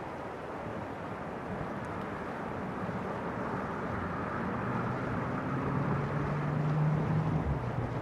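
Steady rush of a fast, shallow mountain river over gravel. A low engine drone comes up about halfway through, grows to its loudest near the end, then fades.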